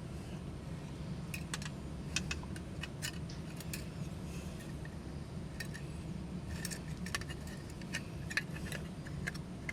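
Scattered light metallic clicks and clinks of small metal parts being handled, over a steady low hum.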